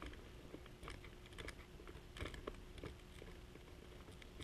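Faint, irregular small clicks and scrapes of a hex driver turning out a long motor-mount screw on a radio-controlled car.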